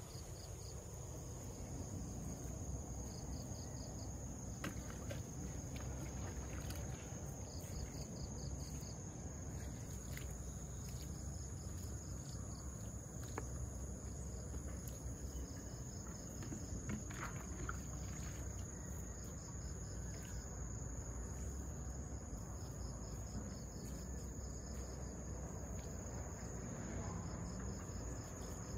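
Insects chirping: a steady high-pitched buzz, with short trills of a few quick pulses repeating every few seconds, and a few faint clicks.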